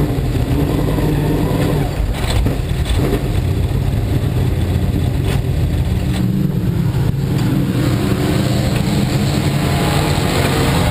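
Dirt-track sportsman modified's V8 engine running at low speed, heard from inside the car, a steady low rumble with a few short knocks about two seconds in and again around six to seven seconds.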